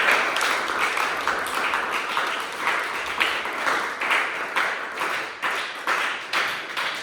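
A room of people applauding and cheering, the clapping loudest at first, then thinning and fading out near the end.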